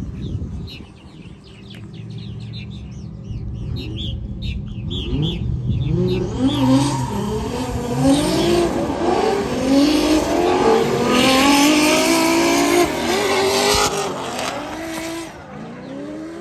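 A drift car sliding past: its engine revs up and down repeatedly while its tyres squeal, loudest from about six seconds in until it fades near the end. Before that, a lower steady engine drone.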